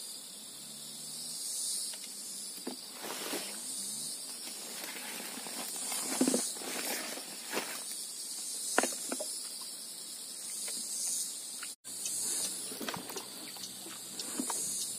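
Insects chirring steadily in a high pulsing drone over an open hiss, with a few short scuffing noises close by.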